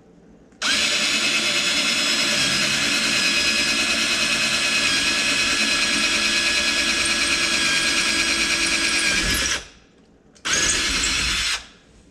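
Black and Decker 20V cordless drill boring a screw hole through a kitchen cabinet door: one long steady run of about nine seconds that winds down, then a second short burst near the end.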